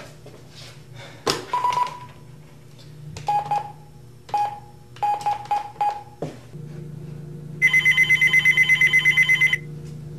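A desk telephone handset is picked up with a click, then a string of short single-pitch keypad beeps sounds as a number is dialled. Near the end, a desk phone rings with a fast pulsing electronic trill for about two seconds, the loudest sound.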